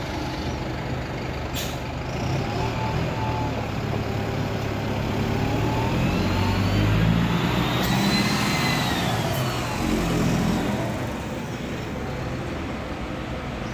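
Mercedes-Benz OF-1721 Bluetec 5 bus's diesel engine pulling away: its pitch climbs for several seconds, peaks a little past the middle, then drops back, with a higher whine rising and falling along with it. A single short, sharp click about a second and a half in.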